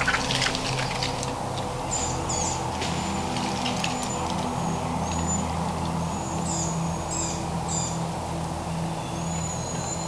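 A wild turkey flapping its wings a few quick beats in the first second. Songbirds chirp in short high phrases over soft background music with long held low notes.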